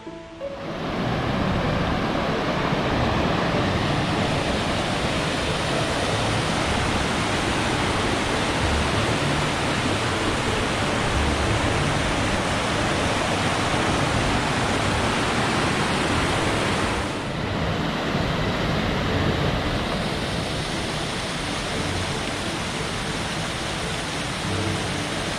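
Rushing water of a mountain stream, a steady loud rush with a short dip about seventeen seconds in.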